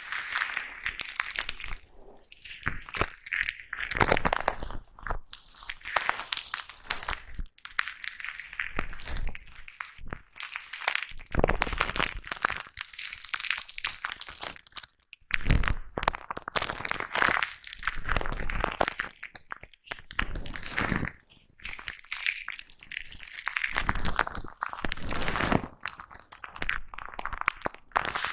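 Foam brush rubbed and brushed against a microphone up close, giving dense crackly, crunching scratches in repeated strokes with brief pauses between them.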